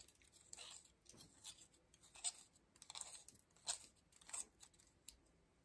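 Faint, intermittent gritty scraping and crunching as an old threaded grommet is twisted by hand out of an antique light socket's cap, the threads grinding loose.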